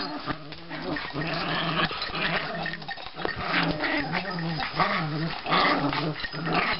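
Chihuahuas play-wrestling, one after another low play growl in a steady run, with light scuffling on the couch.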